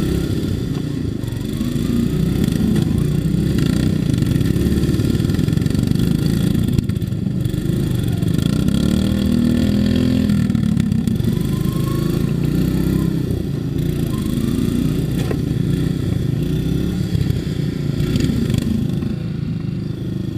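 Engine of a modified riding lawn mower running under throttle close by, its note rising and falling as the mower speeds up and slows while manoeuvring, with a few short knocks.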